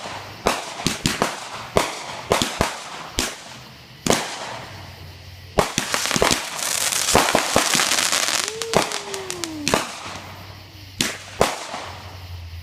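Consumer fireworks going off: a quick string of sharp bangs and pops, then a dense stretch of crackling from about six to ten seconds in, then more bangs.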